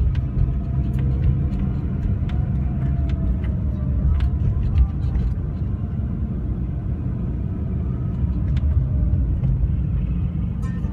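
Road vehicles running: a steady low rumble with scattered short clicks and knocks.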